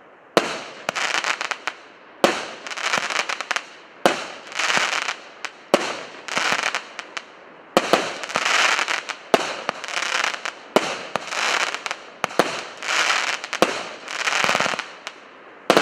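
A 36-shot, 1-inch firework cake firing shot after shot: each a sharp launch pop followed by a burst lasting under a second, one shot every second or two.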